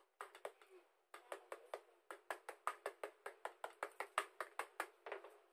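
A metal spoon tapping quickly and evenly against a round tin flan mold, about six light taps a second, running from about a second in until just before the end.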